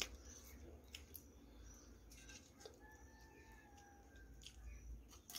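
Near silence: faint clicks of someone eating with their fingers. A faint pitched call of about a second comes from further off, a little past the middle.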